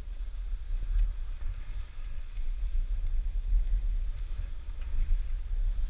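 Wind buffeting the microphone of a skier's body-worn camera while skiing downhill, a steady, gusting low rumble.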